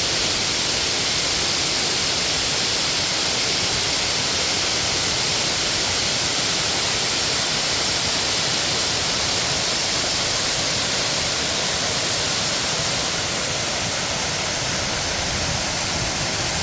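Gongendaki waterfall running full after heavy rain: a steady, unbroken rush of falling water.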